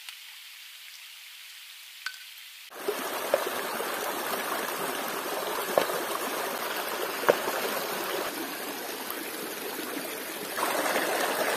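River water running steadily, a rushing wash with a few small clicks in it. It is thin and quieter for the first three seconds, then comes in fuller, and grows louder again near the end.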